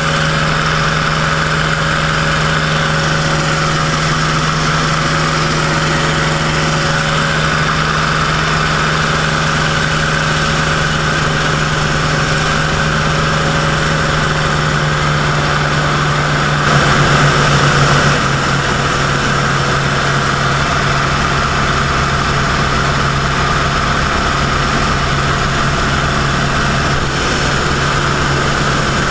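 Grumman F8F Bearcat's Pratt & Whitney R-2800 radial engine and propeller droning steadily in flight, heard from inside the cockpit, with a brief louder surge about two-thirds of the way through.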